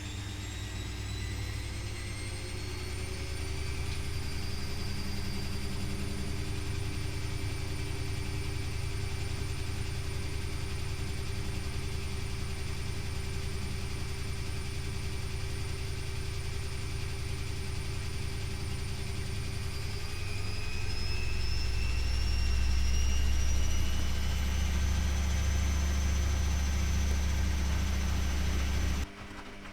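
Privileg Classic 30612 washing machine spinning: the drum motor's whine rises in pitch over the first few seconds, holds steady, climbs again to a higher speed with a heavier low rumble about two-thirds through, then the motor cuts out suddenly near the end.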